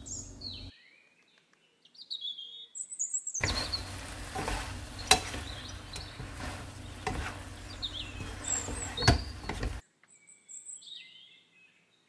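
Bean sprouts and fish cake stir-frying in a pan: a sizzle with sharp spatula knocks against the pan, starting a few seconds in and cutting off suddenly near the end. Short bird-like chirps sound in the quiet stretches before and after.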